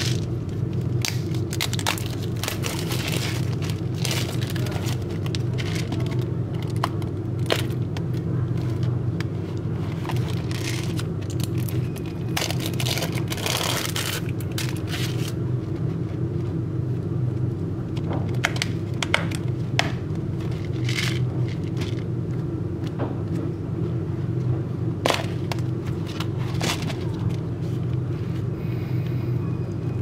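Hands unwrapping a plastic dehumidifier box: crinkling plastic shrink wrap, a foil seal being peeled off, and the plastic tub and lid clicking and scraping, over a steady low hum. The crackling is densest in the first half and comes only now and then later.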